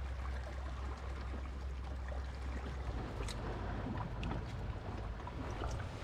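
Steady low wind rumble on the microphone with a hiss of moving water. Hands reach into a shallow rock pool and grab an octopus, with a few short splashes and water sloshing about three to four seconds in.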